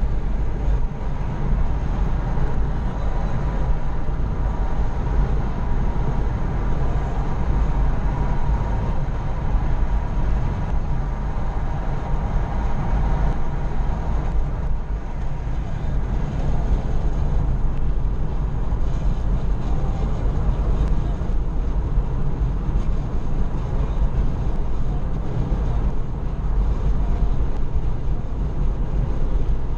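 Steady road noise of a car travelling at highway speed, heard from inside the cabin: tyre and engine rumble, deepest and loudest in the low bass.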